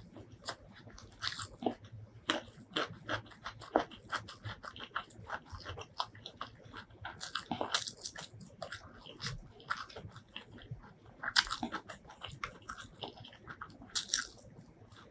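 Close-miked chewing of hand-fed mouthfuls of chicken biryani: a steady run of irregular wet mouth smacks, clicks and soft crunches.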